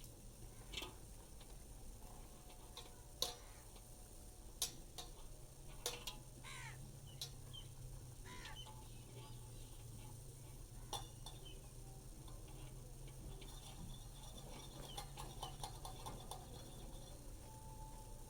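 A rabbit eating, faint: scattered sharp clicks and crunches, with a quicker run of them about fifteen seconds in, over a low steady hum. A few short falling chirps come in the middle.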